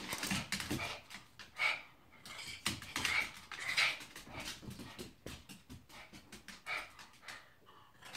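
Two small dogs at play, breathing hard in short, irregular bursts.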